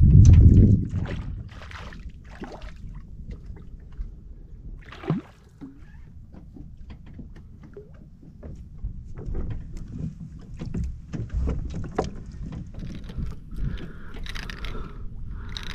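Water lapping against a fishing kayak's hull, with many short clicks and knocks from fishing gear being handled. A gust of wind rumbles on the microphone in the first second. Near the end a wavering high tone comes and goes several times.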